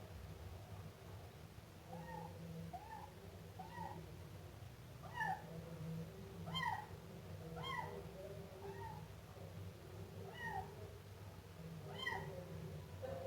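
Siamese kitten meowing over and over: short, high-pitched arched mews, about one a second with uneven gaps, some louder than others.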